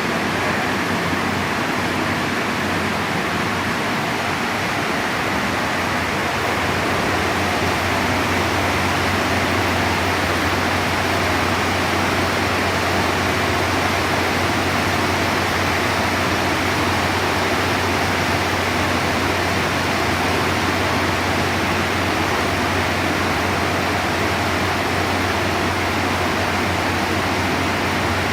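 Heavy tropical downpour: a loud, steady hiss of dense rain falling without a break.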